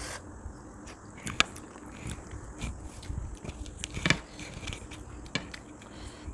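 Eating sounds of soft, mushy rice taken by hand: chewing, wet mouth clicks and smacks, with a few sharper clicks, the loudest about four seconds in.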